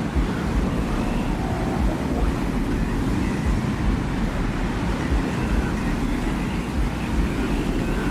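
Steady low rumbling wind in a designed desert ambience, with faint higher whistling tones drifting in now and then.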